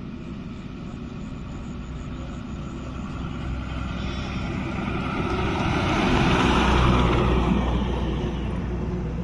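Heavy diesel goods truck driving past on the road: its engine and tyre noise build as it approaches, peak about two-thirds of the way in as it passes close by, then fade as it moves away.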